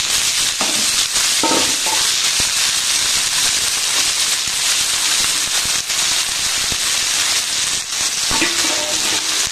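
Chopped flat beans (sem) frying in hot oil in a kadhai, a steady dense crackling sizzle just after the raw beans go into the tempering.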